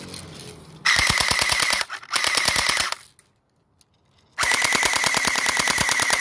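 Battery-powered airsoft Uzi firing on full automatic: three bursts of rapid, even clicks, the last one the longest, with a short quiet gap before it.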